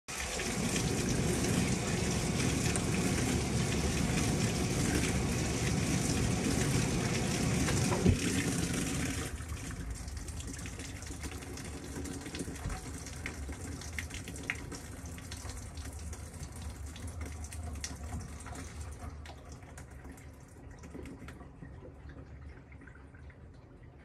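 Water gushing from the inlet of a Panasonic top-loading washing machine into the tub of laundry. A sharp knock comes just before the flow stops, about nine seconds in. After that, water trickles and drips in the tub, fading away.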